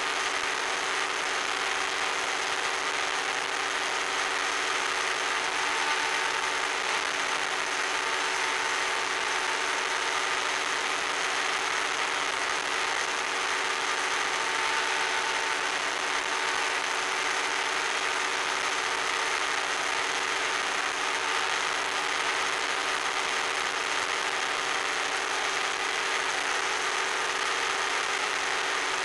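Steady drone of a radio-controlled model airplane's motor and propeller in cruising flight, holding an even pitch over a hiss of rushing air, heard from on board the plane.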